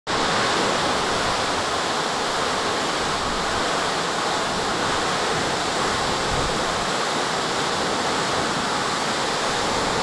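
Tall, narrow waterfall pouring down a rock face into a rocky plunge pool: a steady, unbroken rush of falling water.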